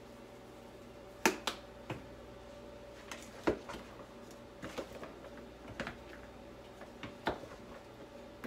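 Spoon knocking and clacking against a plastic mixing bowl while a pasta salad is stirred: irregular sharp clicks, starting about a second in, the loudest of them near the start and in the middle.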